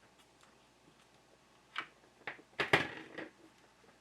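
A few sharp clicks, then a brief clatter of clicks about halfway through, as XLR cable connectors are handled and unplugged from a cable tester.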